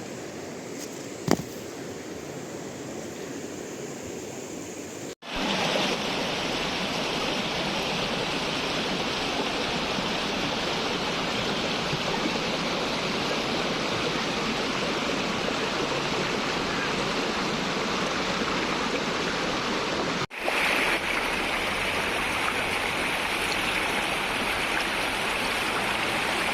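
Steady rush of flowing river water, with a single click about a second in and two abrupt breaks where it cuts out and resumes.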